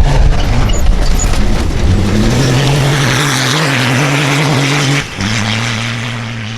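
Cross-country rally vehicle's engine running hard at a fairly steady pitch, with a cut to another engine about five seconds in.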